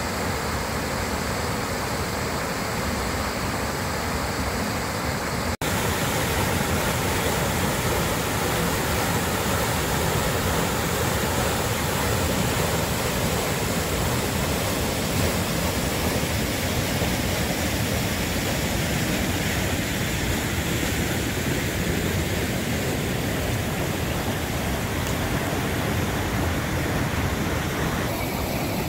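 Waterfall on a mountain river pouring into a pool, a steady rush of falling and churning white water. The sound cuts out for an instant about five and a half seconds in.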